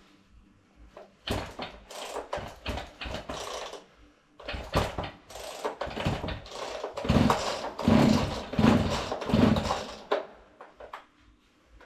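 Irregular clattering and scraping from a Husqvarna 40 chainsaw being handled and worked on, with a run of louder knocks in the second half.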